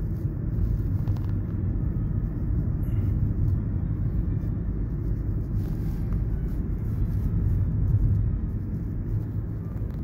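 Steady low rumble of road and tyre noise with engine hum, heard from inside a moving car.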